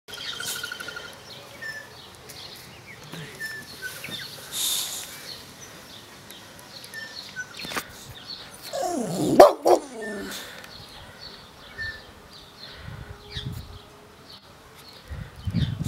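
Boxer dog barking in a short loud burst of two or three barks about nine seconds in, otherwise quiet.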